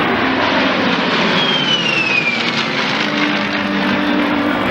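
Aircraft flying past at an airshow display, a loud steady rush of engine noise with a high whine that slides down in pitch about a second and a half in.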